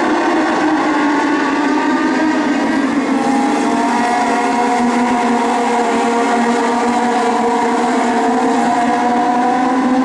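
A pack of Legend race cars running together at racing speed, their motorcycle-derived four-cylinder engines blending into one loud, steady sound. Several engine pitches overlap and slowly rise and fall as the cars go through the turn and accelerate.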